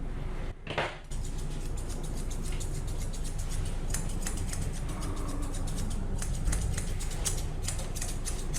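Grooming scissors snipping a Pomeranian's fur: a run of quick, irregular snips over a steady low hum.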